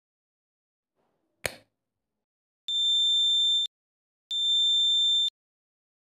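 Piezo buzzer of a homemade laser security alarm beeping twice, each a steady high-pitched tone lasting about a second. A single sharp click comes about a second before the first beep.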